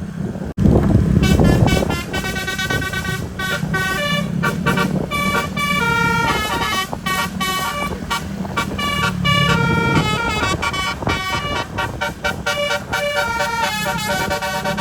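Bus telolet horn, a twelve-trumpet roof-mounted musical air horn, playing a fast melody of stepping notes over a low vehicle rumble. It comes in abruptly about half a second in.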